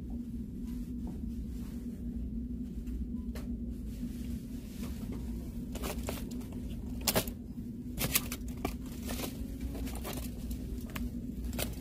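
Clear plastic cosmetic pouches crinkling as they are handled on a store shelf, with a few sharp crackles in the middle. A steady low hum runs underneath.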